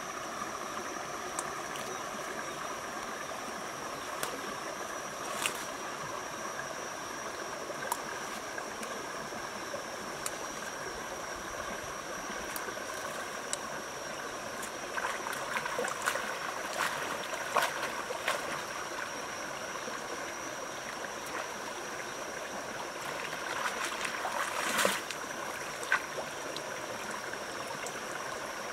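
Shallow rocky stream running steadily, with short splashes and leafy rustles as someone wades and pulls up water spinach. These come in clusters about halfway through and again near the end, the loudest one near the end.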